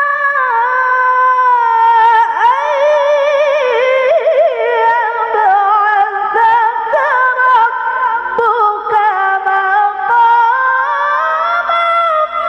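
A woman's high-pitched, melodic Quran recitation (tilawah) into a microphone: one long ornamented line held almost without break, its pitch wavering in quick turns, dropping early on and climbing again near the end.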